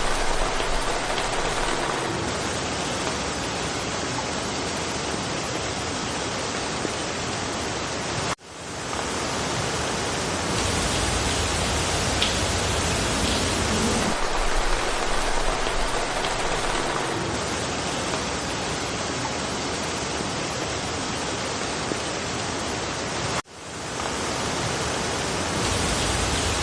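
Steady rain falling through a forest, an even hiss with no single drops standing out. It cuts out abruptly twice, about eight seconds in and again near the end, and swells back in within a second each time.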